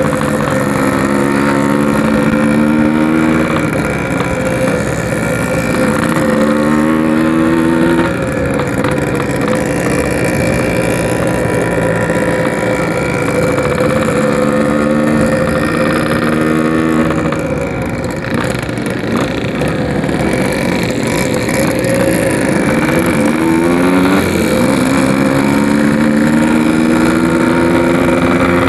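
A Yamaha RX-King's single-cylinder two-stroke engine running through a 'packing power' aftermarket exhaust while riding. It revs up in rising pitch four times and drops back after each rise.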